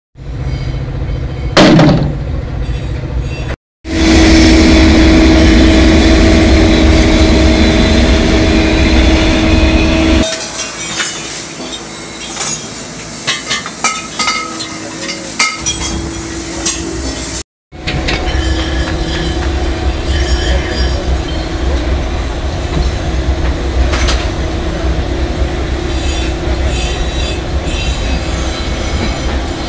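Sounds of aluminium foundry work: sledgehammer blows on scrap aluminium sheet with one loud crash, then a steady mechanical drone with a low held hum. In between, scattered metal clinks and knocks.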